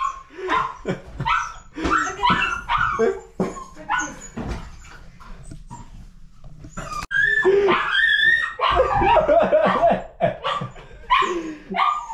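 Husky puppy whining and yipping: a string of short, pitch-bending whines, a quieter lull in the middle, then louder, longer wavering whines from about seven seconds in, the puppy 'talking back'.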